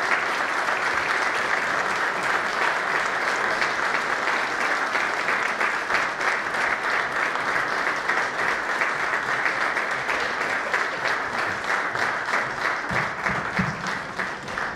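Audience applauding steadily. In the second half the clapping grows sparser and single claps stand out.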